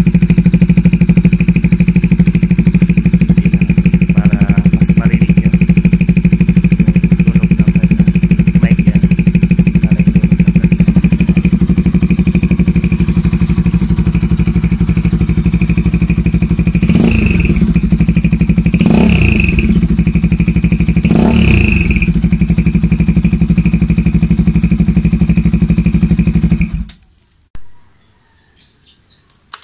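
Kawasaki Rouser RS200 single-cylinder engine idling through a muffler fitted with a turbo whistle insert, giving a steady high whistle over the exhaust note. Three short blips of the throttle about two-thirds of the way in make the whistle rise, and the engine is switched off near the end.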